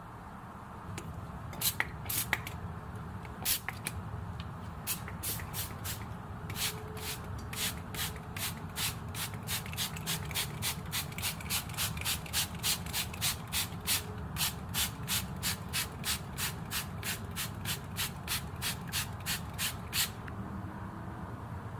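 Trigger spray bottle misting: short spraying hisses, a few scattered at first, then a steady run of about two to three squeezes a second that stops near the end, over a steady low hum.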